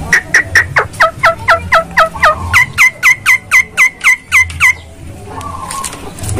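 Javan myna (jalak kebo) calling a rapid run of about two dozen short, sharp notes, each falling in pitch, at roughly five a second and speeding up slightly. The run stops about three-quarters of the way through. The bird's keeper presents the call as its breeding call, the bird wanting to mate.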